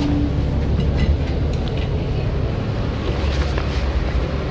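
City transit bus engine running close by: a steady low rumble, with a few faint clicks over it.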